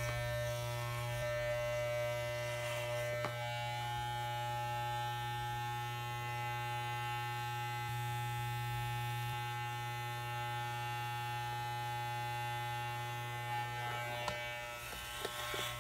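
Corded electric hair clippers running with a steady buzz as they cut through thick, coily hair. A few faint clicks come near the end.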